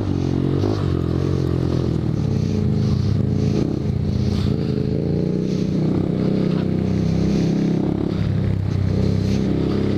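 Motorcycle engine running under a rider on a dirt trail, its pitch rising and falling with the throttle.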